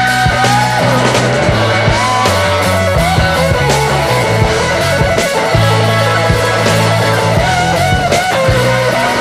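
Rock music with guitar, a bass line and a steady beat.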